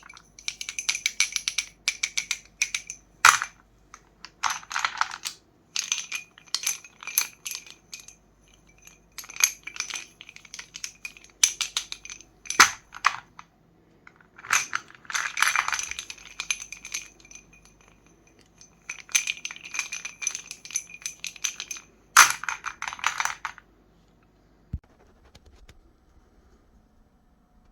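Meat grinder crushing sticks of chalk: gritty crackling and crunching in repeated bursts of a second or two, with short pauses between them, stopping about 23 seconds in.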